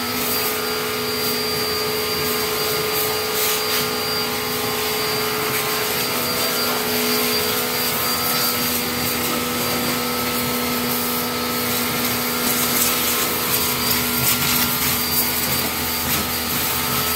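APR electric jet cleaner (pressure washer) running steadily, its motor humming under the hiss of the water jet spraying a motorcycle clean, then cutting off at the end.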